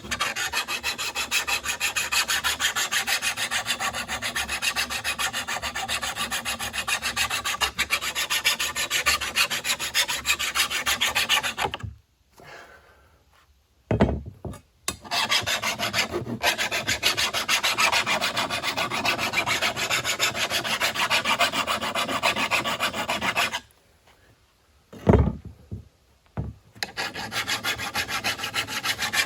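A cheap, well-worn flat hand file rasping along the back edge of a steel lawn mower blade in rapid steady strokes as the edge is profiled down. The filing stops twice for a few seconds, each pause broken by one sharp knock, then starts again.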